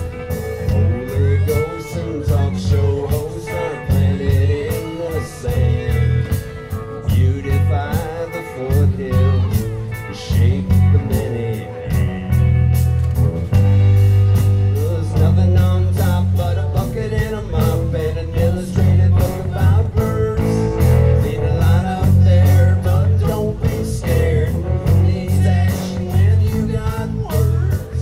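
Live rock band playing: a drum kit keeping a steady beat under electric bass and electric guitars, with bending guitar lines above.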